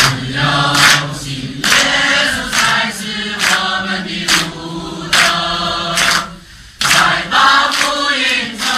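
A choir of voices singing slow, held notes, with a short break about six and a half seconds in.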